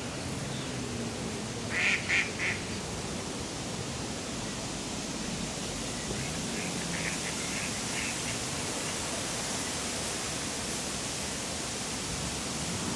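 A duck quacking: three loud, short quacks about two seconds in, then a quicker run of about six softer quacks a few seconds later, over a steady hiss of wind and distant park ambience.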